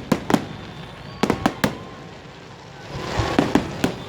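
Fireworks exploding: sharp bangs in quick clusters of two and three, with a rising crackling hiss about three seconds in before another run of bangs.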